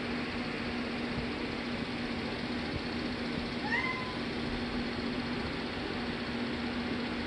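A domestic cat gives one short meow, rising then levelling off, about three and a half seconds in, over a steady background hum.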